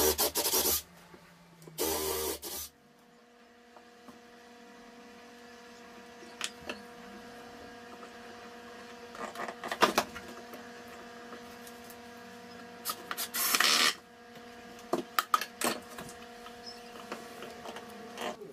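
Cordless drill running in two short bursts, then a steady hum with scattered clicks and knocks as wood and tools are handled, and one louder burst of noise a little after halfway.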